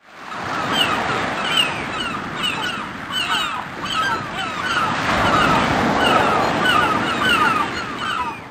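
VK Mobile VK100 ringtone sound effect, a Yamaha SMAF (MMF) file: a rushing noise with short, gliding, chirp-like calls repeating about twice a second, fading out at the end.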